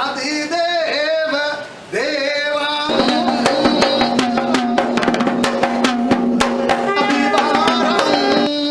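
Voices singing a chant-like melody, joined about three seconds in by quick, dense drum strokes and a steady held low note under the singing; the drumming stops shortly before the end.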